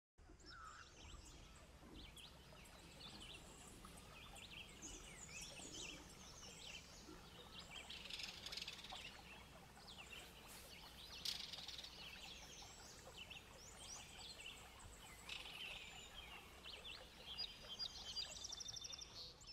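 Faint birdsong from several small birds chirping and calling over a low steady hum, with a rapid trill near the end.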